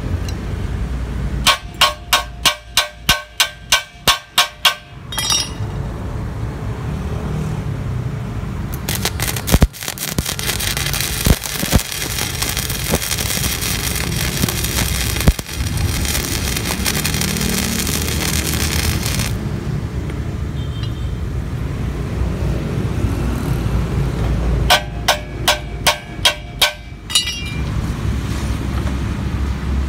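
Flux-core (gasless) MIG welding arc crackling and sputtering steadily for about ten seconds in the middle, from a Weldcom Multimag V2000 welder running a bead on steel box section. Before and after it come runs of sharp ringing metal strikes on the steel, about three a second, a dozen near the start and about eight near the end.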